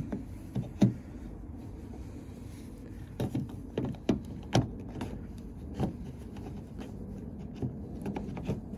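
Irregular light clicks and knocks as the chrome exterior handle of a 2016 Kia Optima's rear door is fitted and pulled into place in the door.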